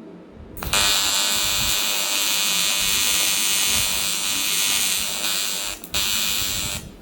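AC TIG welding arc on aluminum, buzzing steadily with a high hiss. It is struck about half a second in, breaks off for a moment near the end, restarts, then stops.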